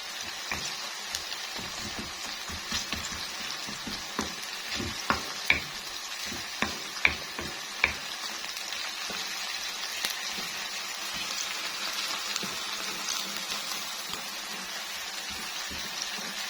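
Sliced onions frying in hot oil in a pan, a steady sizzle with scattered sharp pops and crackles, most of them in the first half. The onions are being browned to a red-brown colour.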